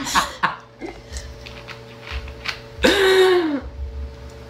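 A small girl's burp: one loud belch, under a second long, about three seconds in, its pitch falling as it ends.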